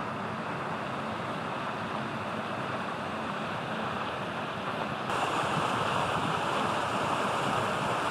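Steady outdoor wind noise, a rushing hiss that gets louder and brighter about five seconds in.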